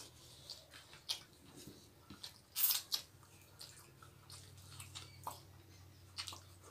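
Close-up eating sounds of people eating rice and curry with their hands: chewing, small wet mouth smacks and finger licking, with one louder wet sound about two and a half seconds in.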